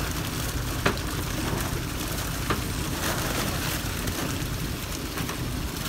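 Water and live fish being poured slowly from a container into the sea, a steady rushing, splashing noise, over a low steady engine hum, with a couple of short knocks.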